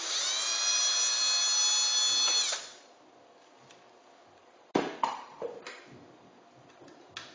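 Small electric screwdriver motor running for about two and a half seconds as it undoes a screw, its whine settling in pitch just after it starts and then holding steady. About five seconds in there is a sharp clack, followed by a few lighter knocks.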